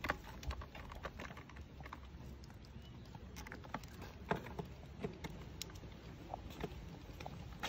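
Stroller wagon's wheels rolling over brick paving: faint, irregular clicks and knocks over a low rumble.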